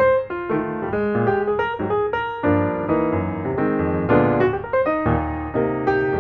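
Background piano music: a melody of quick notes over sustained chords.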